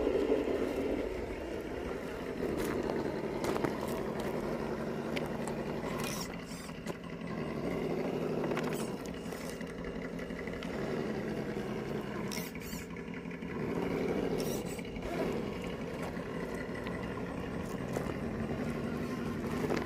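Ascent Fusion RC rock crawler's electric motor and geared drivetrain whining as it crawls over rocks, the pitch rising and falling with the throttle, with scattered clicks and knocks of the tires and chassis on rock.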